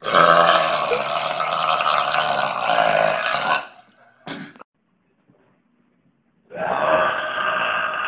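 A man's long, loud burp lasting about three and a half seconds, brought up by carbonated seltzer. A brief sound follows, and from about six and a half seconds in a second long burp starts, duller in tone.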